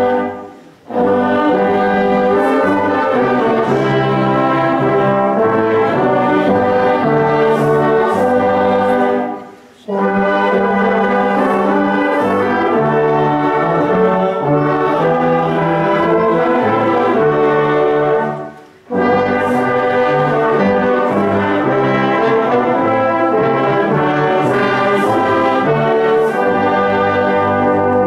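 Church brass choir (Posaunenchor) of trombones, horns and trumpets playing a slow piece in sustained chords. The music breaks off briefly for breath between phrases, about every nine seconds.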